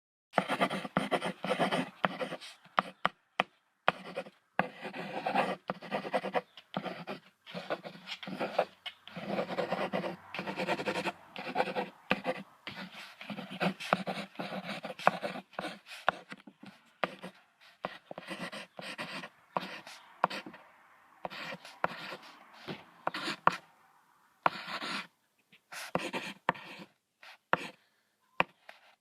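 Bison making a string of rough, breathy grunts and heavy breaths in irregular bursts, shorter and more spaced out near the end.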